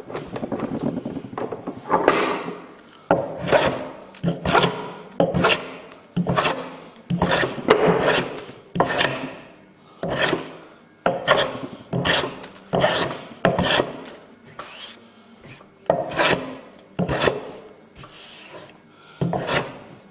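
Wooden hand plane being pushed along a block of timber in repeated strokes, roughly one a second, each pass shaving wood off the sawn face to bring it down to the marked line.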